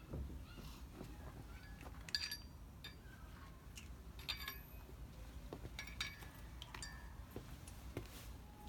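A few light metallic clinks, spread out at intervals of about two seconds, with quiet handling noise between them; no power tool is running.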